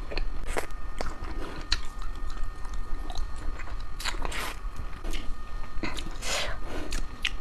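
Close-up biting and chewing of crispy ice cream, a run of irregular crunches with the biggest bites about four seconds in and again about six seconds in.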